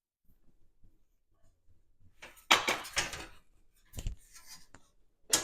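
14-gauge sheet steel knocking and clanking as it is worked in a homemade flange brake. There is a clattering run of metal knocks about two and a half seconds in, a dull thump around four seconds, and a single sharp clank near the end.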